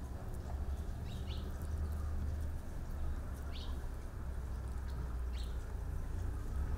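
A bird giving short, sweeping chirps every second or two, over a steady low rumble.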